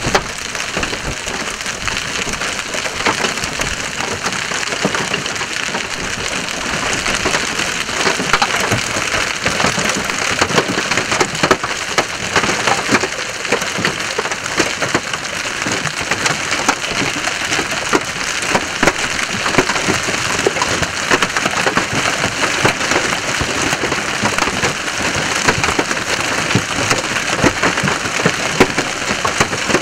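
Large hail pounding down: a dense, continuous clatter of hailstones striking the road and vehicles, with many sharp individual impacts standing out from the roar.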